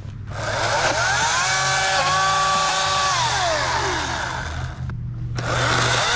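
Ryobi 40-volt 14-inch battery chainsaw running: the electric motor whines up to speed, holds, then winds down. About five seconds in it stops briefly and spins up again.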